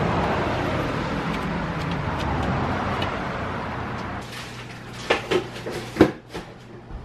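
A steady rushing outdoor noise that slowly fades, then several sharp knocks and clicks about five to six seconds in.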